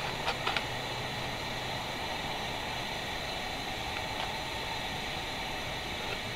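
Steady hiss of a vintage camp stove's burner, lit and heating a coffee pot, with a few faint knife clicks on an enamel plate near the start as thick bacon is sliced.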